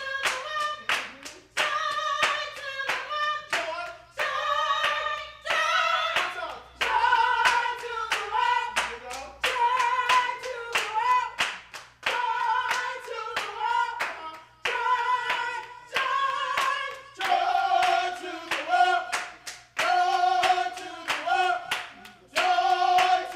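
Gospel choir singing a Christmas carol, unaccompanied, with steady hand clapping on the beat about twice a second.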